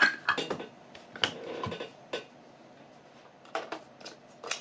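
Sharp plastic clicks and small knocks from handling a Canon Rebel DSLR body as its battery goes in and its controls are worked, scattered irregularly, about eight or nine in all.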